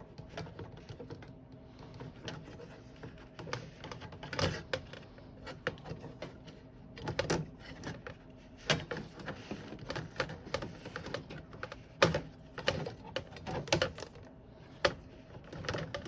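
Irregular clicks and light knocks from handling an aluminum camper window frame while new rubber gasket is worked into its track, with the sharpest knock about twelve seconds in.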